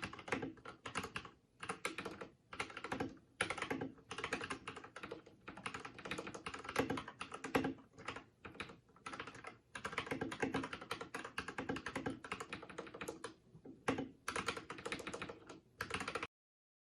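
Typing on an Akko World Tour Tokyo R1 3087 mechanical keyboard with Akko pink switches and PBT keycaps: rapid key clacks in runs with short pauses. The typing cuts off abruptly near the end.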